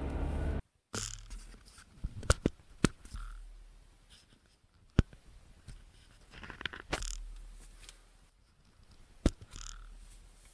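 Handling noise on the HTC RE camera: a handful of sharp clicks and taps with light scraping between them, over a faint low rumble. The owner traces such noises to something loose inside the camera that rattles.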